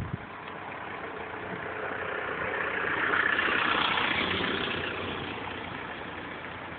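A car driving past: engine and tyre noise swelling to a peak about three to four seconds in, then fading away.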